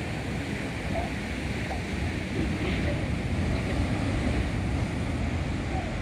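Ocean surf breaking and washing, growing a little louder in the middle, with wind rumbling on the microphone.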